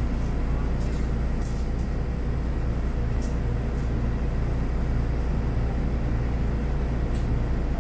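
Apron shuttle bus driving along, a steady low rumble of engine and road noise heard from inside the bus, with a few brief faint ticks or rattles.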